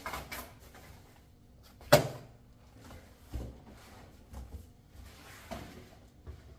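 Parts and packaging being handled and put down: one sharp, loud knock about two seconds in, with softer knocks and rustling before and after it.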